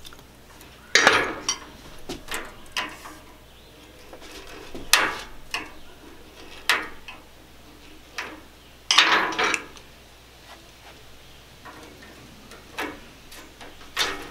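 A metal hand tool clicking and scraping against a window screen frame in short irregular bursts, the longest about nine seconds in, as the frame's metal retaining spline is pried out of its channel.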